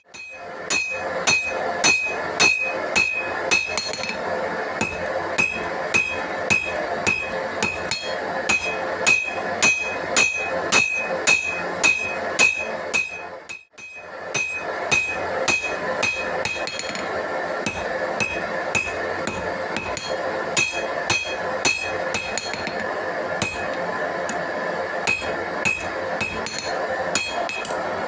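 Hand-forging hammer blows on a knife blade and anvil, struck at about two to three blows a second, each with a bright metallic ring, over a steady rushing noise. The hammering breaks off briefly about halfway through, then carries on with lighter blows.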